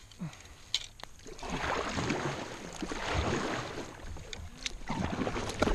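Kayak paddle strokes: the blades swish and splash through calm lake water in waves of rushing noise, beginning about a second and a half in and again near the end. A couple of sharp knocks come in the first second.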